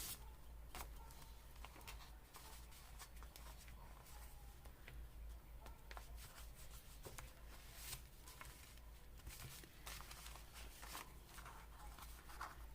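Near silence with faint rustles and small taps of paper being handled and pressed down while gluing pieces into a journal, over a steady low room hum.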